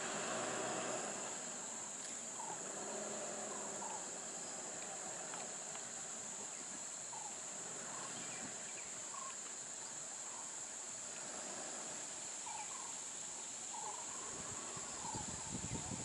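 Steady high-pitched drone of insects, with short faint bird chirps scattered through.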